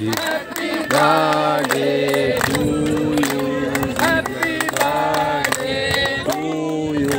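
A group of men and women singing a Hindi song together in unison, clapping their hands on a steady beat of about two claps a second.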